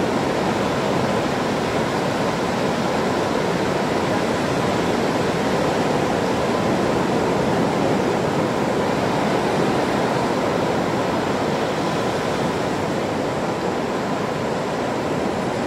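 A steady, even rushing noise that does not change or break, with no separate calls or knocks standing out.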